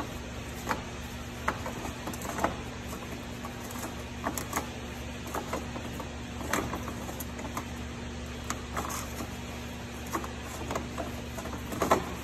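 Scattered metal clicks and knocks of a fuel filter wrench working a Cummins X15's spin-on fuel filter loose, over a steady low hum.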